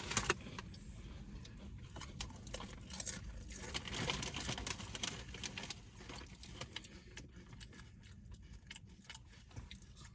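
Irregular crisp crunching and crackling of potato chips being eaten, with the chip bag being handled, louder in the first half and fainter after about six seconds.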